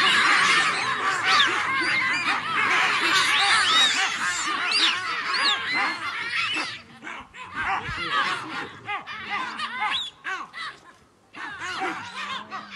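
A troop of baboons calling together in a dense chorus of overlapping screams and barks. The calling thins out about halfway through into scattered calls with short gaps.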